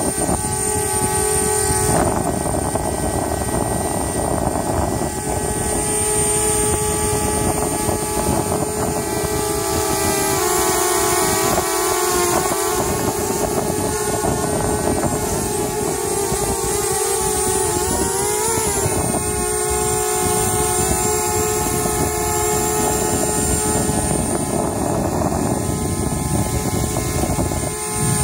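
DJI Spark quadcopter hovering close by: the steady buzzing whine of its four propellers, the pitch wavering up and down as the motors change speed while it manoeuvres, most noticeably around the middle.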